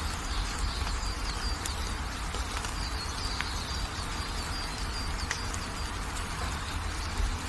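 Steady hiss of gentle rain with small birds chirping in runs of short, quick high notes and a few sharp ticks, over a continuous low rumble.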